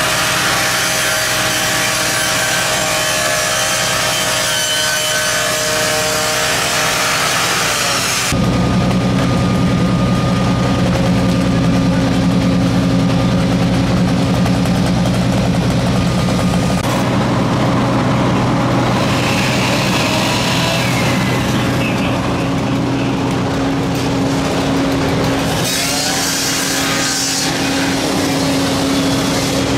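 Continuous machinery running at a structure fire, engines and pumps, with a hissing noise at first. The sound changes abruptly about 8 seconds in to a steadier, lower engine hum, then shifts again near the middle.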